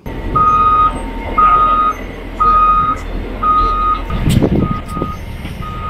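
Caterpillar wheel loader with pallet forks backing up with its engine running and its reversing alarm beeping about once a second. There is a low thump about four seconds in.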